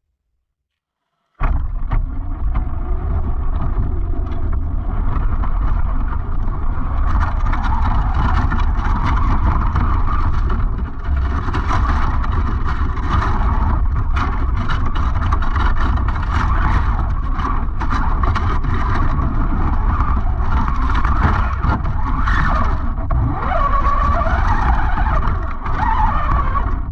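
Traxxas Raptor R RC truck driving over snowy grass, heard through a camera mounted on the truck. A loud, steady rumble and rattle of chassis and tyres, full of clicks and knocks, starts suddenly about a second in. Near the end the brushless motor's whine rises and falls.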